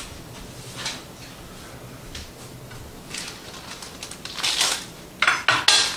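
Kitchen prep handling: a few light clicks and taps on the counter, then two short rustling swishes near the end as a work surface is readied for chopping.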